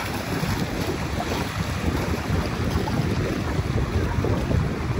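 Gusty wind buffeting the microphone: a loud, uneven low rumble that swells and dips, over a steady hiss.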